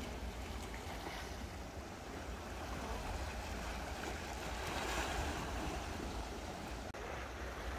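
Sea surf washing against the shore rocks, with wind rumbling on the microphone; the wash swells to its loudest about five seconds in.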